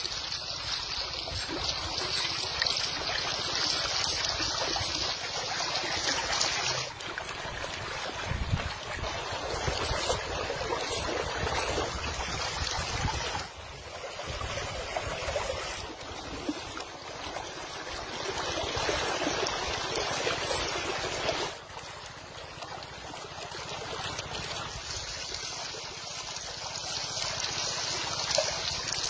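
Shallow river water rushing and rippling over a sandy bed, a steady noisy wash that drops suddenly in level three times.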